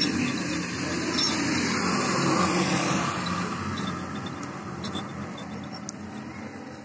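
A motor vehicle passing by, its noise swelling over the first two or three seconds and then slowly fading.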